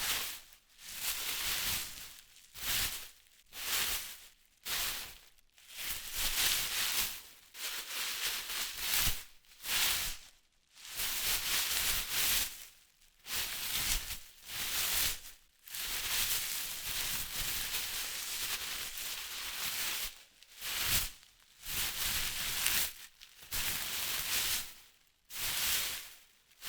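Wind blowing through trees, the leaves rustling in gusts that swell and die away every second or two, with one longer steady gust past the middle.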